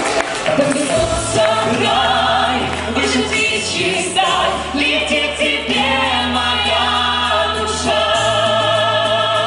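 Several voices singing a pop song in harmony into microphones over a backing track with a steady bass line; the song changes abruptly about four seconds in, and the held notes near the end waver with vibrato.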